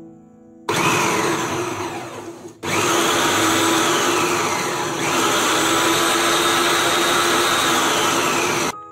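Vidiem ADC mixer grinder motor run on its reverse setting, spinning the chopper-jar blade through sliced cabbage. A short burst about a second in winds down, then a longer steady run of about six seconds cuts off suddenly near the end.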